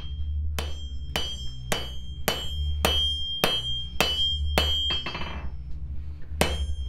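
Hand hammer striking a red-hot knife blade on an anvil, about two blows a second, each with a bright metallic ring. The blows stop for a moment a little past halfway, then start again near the end.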